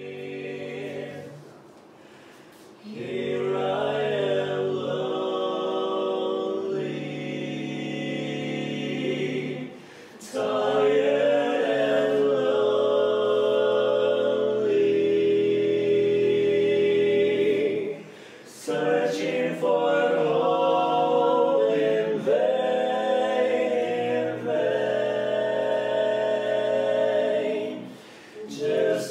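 Barbershop quartet of four men singing a cappella in close four-part harmony, in long sustained phrases with short breath breaks between them.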